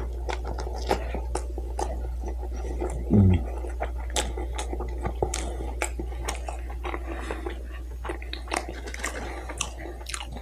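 A man chewing a mouthful of cheddar-and-beer bratwurst in a bun, with a steady run of wet smacks and small clicks of the mouth. About three seconds in comes a brief low hum that falls in pitch, and a steady low hum runs underneath throughout.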